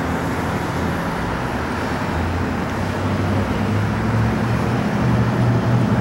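A motor vehicle's engine running with a steady low hum over road traffic noise. The hum grows a little louder from about two seconds in.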